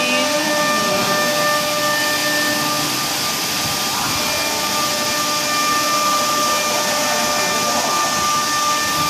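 Jinan Quick UA-481 CNC router running: a steady rushing, vacuum-like noise with several steady whining tones over it.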